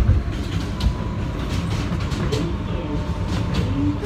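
Kawasaki R160B subway car running on elevated track, heard from inside the car: a steady low rumble with wheels clicking over rail joints. Faint brief squeals come in the second half as the train pulls into the station.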